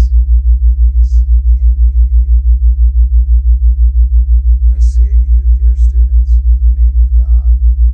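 Loud, low theta-wave tone pulsing evenly about five times a second, with a faint voice underneath.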